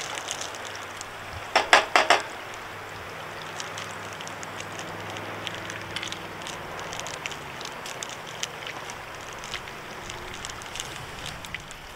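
A quick run of three or four sharp knocks about two seconds in, then scattered light clicks and crackles over a faint steady background.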